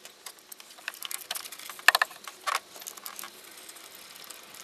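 Scattered light clicks and metallic rattles of a gloved hand and tool working at the bolts of the metal mount over the fuel filter, with one sharp click about two seconds in and a short scrape just after.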